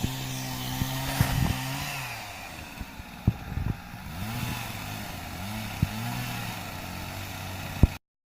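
A small engine running steadily, its pitch rising and falling in a few short revs, with scattered sharp knocks. It cuts off suddenly near the end.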